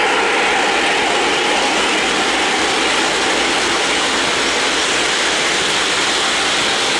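O-gauge three-rail model trains running past on the layout track: a steady noise of wheels rolling on rail with mechanical clatter.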